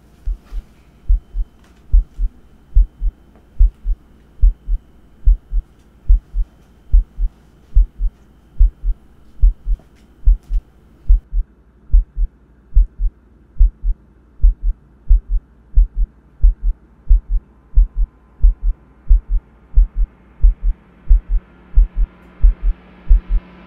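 Heartbeat sound effect: deep double thumps about once a second, steady throughout, with a low hum swelling in near the end.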